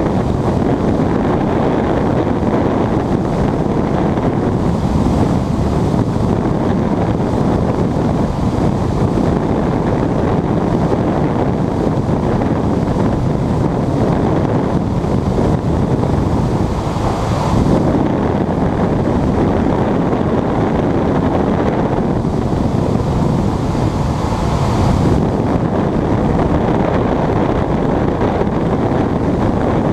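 Steady rush of airflow around a glider's cockpit and canopy, buffeting the camera microphone during an aerotow climb behind a tow plane.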